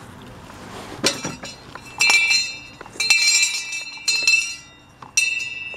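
Brass hand bell rung about five times, roughly a second apart, each stroke ringing on with the same clear tone before fading.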